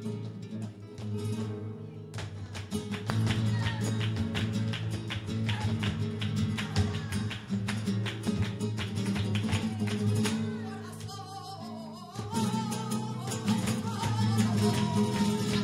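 Live flamenco music: a flamenco guitar playing dense, quick strokes, joined by a singer's wavering voice about two-thirds of the way in.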